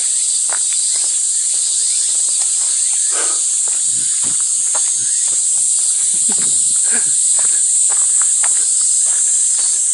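Loud, steady high-pitched buzzing of summer cicadas, with irregular footsteps and scuffs on the path through the middle.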